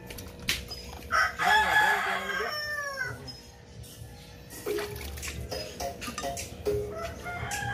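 A rooster crows once, starting about a second in, a long call that falls away at its end. Water splashes and sloshes as live catfish and mudfish are lifted out of a plastic basin.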